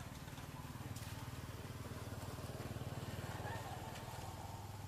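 A motor running steadily with a low, even rumble.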